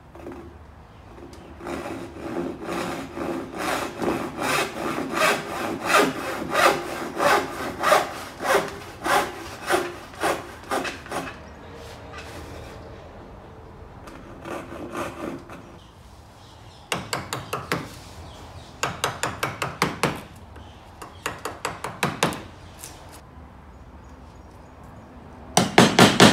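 Handsaw cutting into a wooden board, steady back-and-forth strokes about two a second, pausing and resuming in shorter runs. Near the end, a few sharp mallet blows on a chisel.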